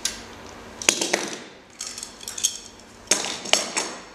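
Chain whip and cassette lock ring tool clanking against a mountain bike cassette as the lock ring is worked loose: a series of sharp metallic clinks and knocks, loudest about a second in and again about three seconds in.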